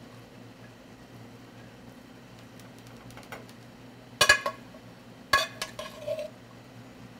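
Metal spoon clinking and scraping against a metal frying pan as filling is scooped out of it: quiet at first, then a few sharp clinks in the second half.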